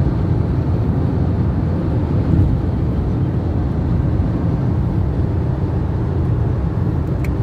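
Steady road noise inside a moving car's cabin at highway speed: low tyre and engine rumble.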